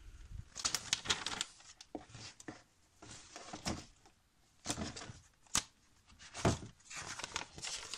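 Paper magazine pages being turned and handled: a series of short rustles and flicks, the sharpest a crisp flick a little past halfway.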